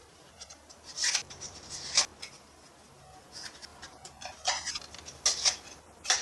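Plastic clicks and rattles of a toy foam-dart blaster being handled while foam darts are pushed into its revolving cylinder: a scatter of short sharp clicks, the sharpest about two seconds in.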